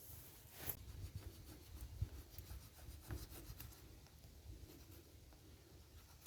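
Faint rubbing and scraping from hand work on a small part, with a few light taps at irregular intervals.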